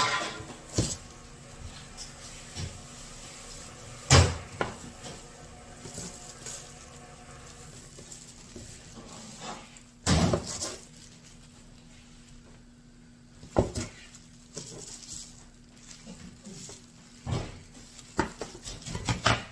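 Scattered knocks and clatters, as of things being handled and set down, spread irregularly with quiet between them; the loudest come about four and ten seconds in.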